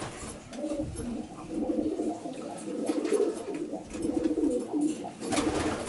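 Racing pigeons cooing, a continuous low warbling.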